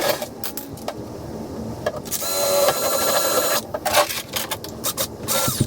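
A small power drill whirs for about a second and a half, starting about two seconds in. Clicks and knocks of tool handling come before and after it.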